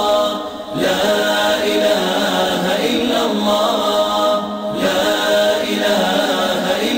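Unaccompanied Islamic nasheed: several voices chant a slow melody in long phrases, with short breaks about a second in and again just past halfway.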